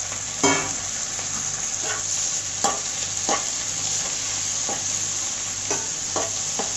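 Onions and freshly added chopped tomatoes sizzling in butter in a kadai, stirred around the pan, with irregular scrapes and knocks against the pan every second or so over a steady frying hiss.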